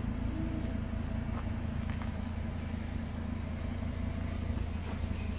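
Volvo S60's five-cylinder engine idling steadily, heard from behind the car near the exhaust.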